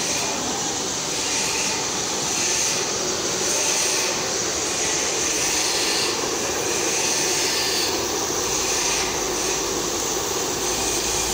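Steady rushing hiss of high-pressure LPG gas burners firing under large karahi woks, unbroken throughout.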